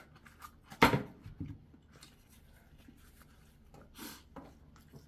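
Paper tissue pulled from a pocket pack and rustling, with one sharp knock about a second in, the loudest sound; a short rustle about four seconds in as the tissue is wiped across the face.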